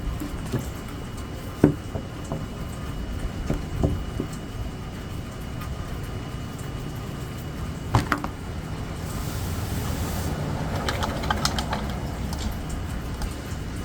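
A few light knocks and taps of painting things being handled on a table, the loudest about eight seconds in and a quick run of small ticks near the end, over a steady low background noise.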